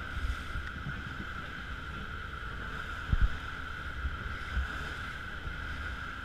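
Rigid inflatable speedboat under way: a steady engine note with water rushing along the hull and wind on the microphone, and a few low thumps about three seconds in.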